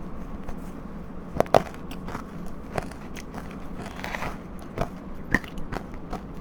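Close-up bites and chewing of powdery frozen ice dusted with matcha powder: sharp, crisp crunches, the loudest two in quick succession about a second and a half in. Softer crunching follows around four seconds, then more single bites near the end.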